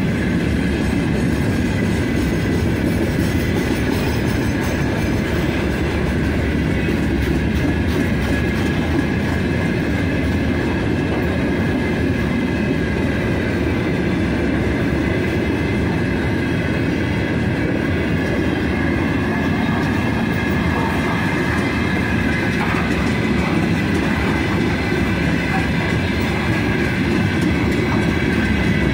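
A long freight train rolling past with a steady rumble of wheels on rail, with some clickety-clack over the rail joints.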